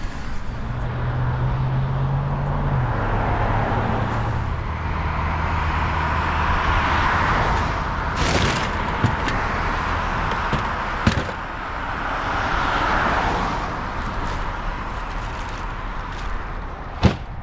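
Road traffic on a wet road: engine hum and tyre hiss swelling up and fading as cars pass. A few sharp knocks come through, the loudest near the end.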